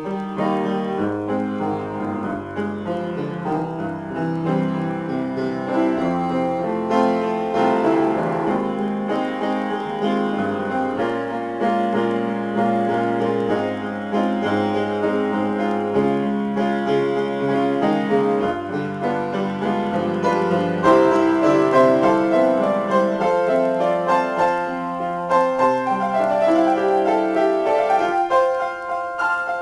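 Solo piano improvisation: a continuous flow of notes and chords.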